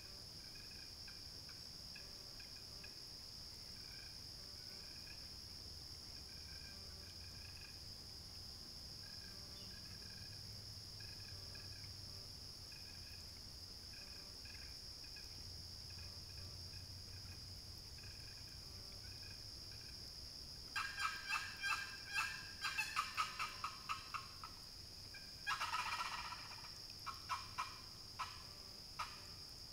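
Walnut-over-chestnut turkey box call run at a distance, imitating a wild turkey: about two-thirds in, a fast run of short sharp notes, then a longer yelp and more spaced short notes, with another quick run right at the end. A steady high insect drone runs underneath.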